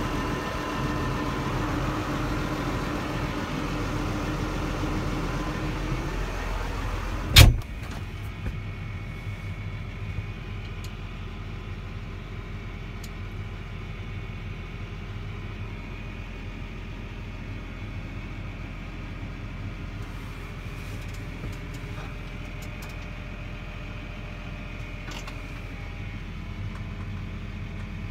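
New Holland tractor engine running steadily, heard from inside the cab. About seven seconds in there is a single sharp knock, after which the engine sound is quieter.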